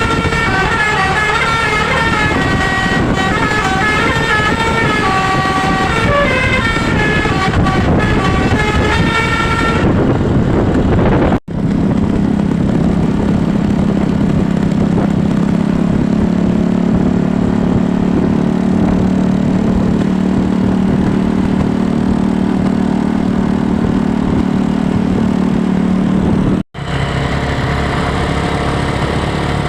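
A bus's telolet basuri musical horn playing a tune of stepping notes for about the first ten seconds. After that comes a steadier, lower drone, which cuts off abruptly twice.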